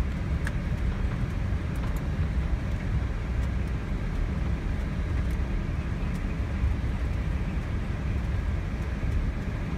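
Steady low rumble in an Airbus A320 cockpit while the airliner taxis after landing: the engines at idle and the rolling airframe, with a few faint ticks.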